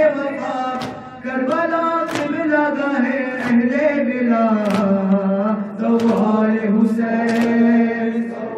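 A young man's amplified voice chanting a noha, a Shia lament, in long held lines that glide slowly in pitch. Sharp slaps land in a steady beat about every 1.3 seconds, the chest-beating (matam) that keeps time with the lament.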